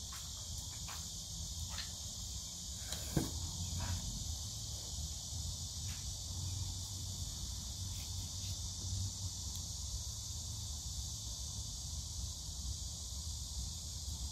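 Steady high-pitched insect chorus, with a low background hum and a few faint handling clicks, the clearest about three seconds in.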